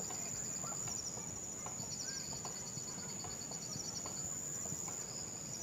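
Nature ambience of insects and birds: a steady high-pitched insect drone throughout, with rapid pulsing trills coming and going, and scattered short rising bird chirps.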